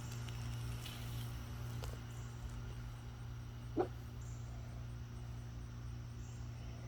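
A dog gives one short bark about four seconds in, over a faint steady low hum.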